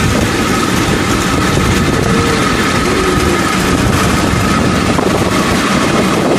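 Pedal-powered rail bike rolling along a railway track: steady running noise of its steel wheels on the rails, with a faint steady whine, mixed with wind buffeting the microphone.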